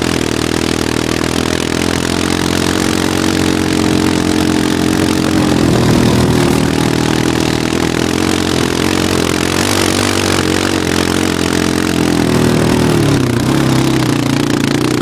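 Quad (ATV) engine running steadily under load as it tows a sled through tall grass, over a loud steady rushing noise. Near the end the engine's pitch dips and then climbs again.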